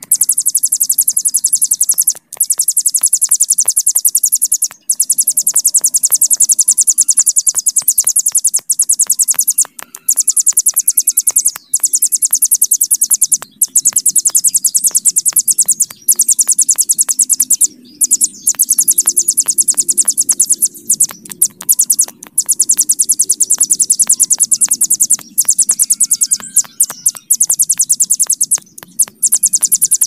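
Ciblek gunung, a small prinia, singing its long, very fast, high buzzing trill ('bren panjang'). The trill runs almost without a stop, broken by short gaps every couple of seconds.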